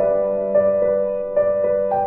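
Background piano music: a slow melody of sustained notes.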